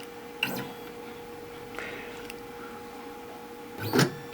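A steady electrical hum with a few brief clicks and knocks; the loudest, a short sharp burst, comes near the end.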